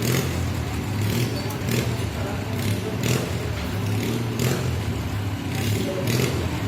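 Motorcycle engine running steadily at a low, even pitch, with a few sharp clicks over it.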